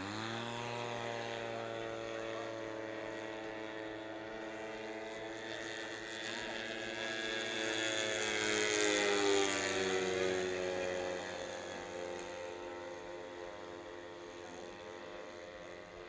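Twin-engine radio-controlled P-38 Lightning model's engines and propellers running in flight. The pitch rises sharply at the start as the throttle comes up, then holds steady. The sound grows loudest about eight to ten seconds in as the plane passes, then its pitch drops slightly and it fades away.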